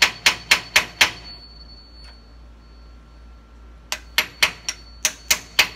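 Small hammer striking an aluminum punch in quick, even taps, about four a second, driving the gland of a skid steer's hydraulic lift cylinder down into the barrel to expose its snap ring. The tapping stops about a second in and starts again about four seconds in.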